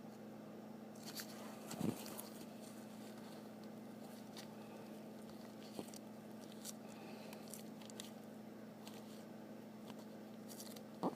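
Handling noise: scattered light taps and scrapes, with two louder knocks about two seconds in and near the end, over a steady electrical hum.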